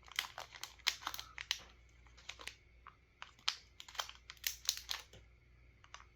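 Small plastic packaging holding replacement mouse micro-switches being handled and opened: an irregular run of sharp crinkles and light clicks.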